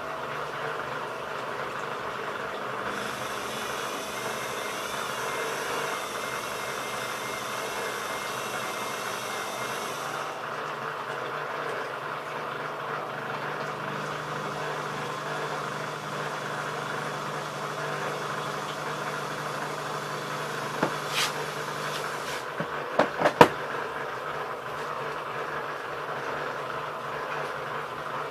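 ELIN A 100 E washing machine running with a steady motor hum. A high whine joins it after a few seconds and stops about ten seconds in. A few sharp clicks come near the end, one louder than the rest.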